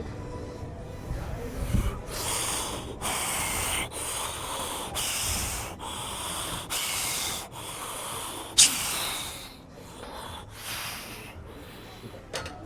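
A lifter's rapid, forceful breaths, roughly one a second, while bracing for and working through a heavy barbell squat set. One sharp knock about eight and a half seconds in.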